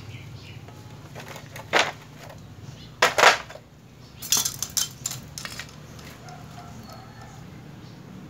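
Hard plastic clicks and clatters as the chrome-plated trim bar is pulled off a Mitsubishi Strada pickup's front grille and set down. There are a couple of clicks, then the loudest crack about three seconds in, then a quick run of clicks a second later.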